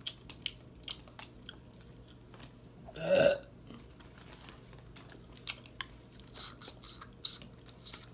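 A single loud burp about three seconds in, among small clicks and crackles of shrimp shells being peeled by hand and chewing sounds.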